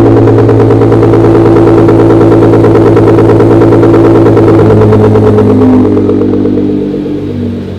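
Nissan GT-R's twin-turbo V6, fresh from a Garrett GTX28 turbo upgrade, running loudly at idle through its quad exhaust on its first start-up after the install. The note wavers in pitch and falls quieter about six seconds in.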